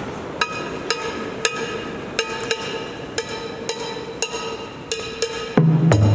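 Music: a mallet percussion instrument strikes clear ringing notes about twice a second over a steady held tone. About five and a half seconds in, loud deep bass notes join and the music gets louder.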